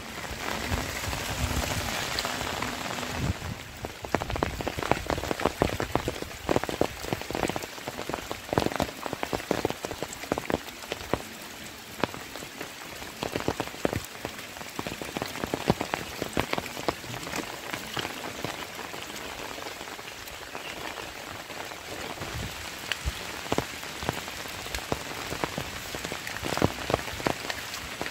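Rain falling on wet ground and vegetation, with many irregular sharp drop hits close by.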